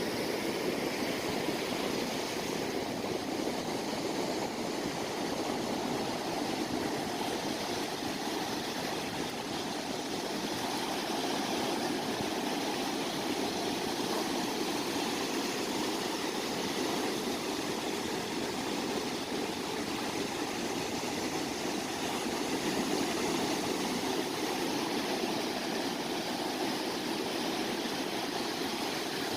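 Sea surf washing onto the shore, a steady rush of water with no single wave standing out.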